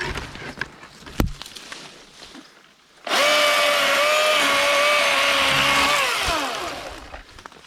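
Milwaukee M18 Fuel battery-powered chainsaw starting suddenly and running at full speed with a steady whine for about three seconds. It then winds down with falling pitch as the trigger is released. A sharp knock comes about a second in, before the saw starts.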